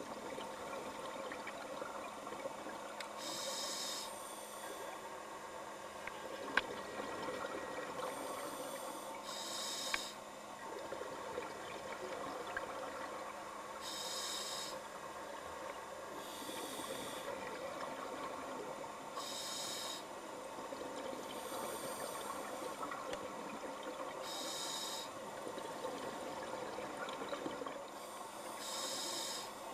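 Scuba breathing recorded underwater: a diver's regulator gives a hissing, bubbling burst about every five seconds, sometimes as a pair of breaths in and out. Under it runs a steady underwater crackle and a faint low hum.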